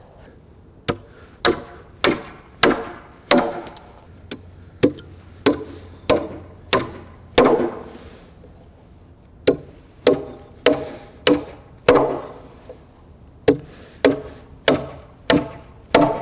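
Framing hammer driving nails into 2x8 lumber framing: a steady run of sharp strikes, nearly two a second, in three runs with short pauses between them about halfway through and again later.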